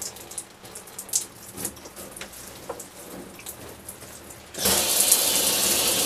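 Water from an RV's handheld shower head, running thinly with small irregular splashes, then a loud, steady spray starting about four and a half seconds in, as the shower line is purged of air.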